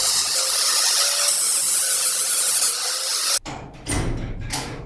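Angle grinder grinding metal: a loud, steady hiss with a high whine, cutting off abruptly about three and a half seconds in. Short, fainter rushes of noise follow near the end.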